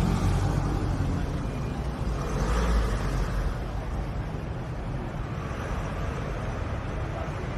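Road traffic on a city street: a van and cars drive past close by over a steady low rumble. One pass swells louder about two and a half seconds in.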